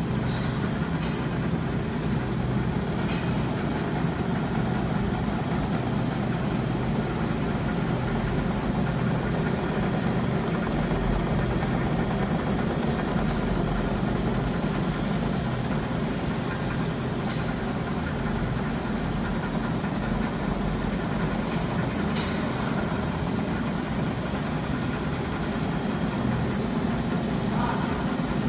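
Pineapple cone winders (precision traverse yarn winding machines) running, a steady mechanical hum from their motors and winding heads. One sharp click late on.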